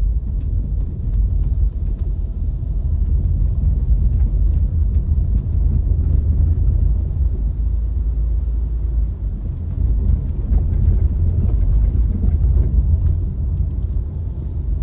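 Car driving on a wet road in light rain: a steady low rumble of road and engine noise, with faint scattered ticks.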